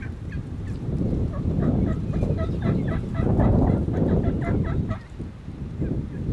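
Wild turkey gobbling, a rapid rattling string of notes for several seconds in the middle, most likely a Merriam's tom. Heavy wind rumble lies underneath.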